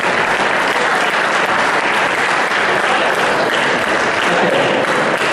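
Audience applauding steadily and continuously.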